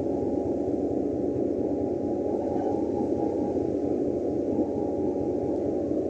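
Steady mechanical drone of a ferry underway, an even rushing noise with a faint held hum inside it, unchanging throughout.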